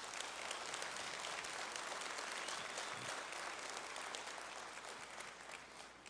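A large audience applauding, the clapping steady and then fading out near the end.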